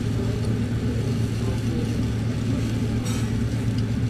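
Steady low hum at a takoyaki griddle table, with faint sizzling of batter cooking in the hot iron pan and a brief scratchy sound about three seconds in as picks work the balls.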